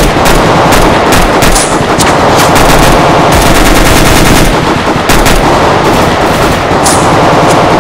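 Rapid automatic-rifle gunfire sound effects, loud and nearly unbroken, with overlapping bursts and only brief lulls.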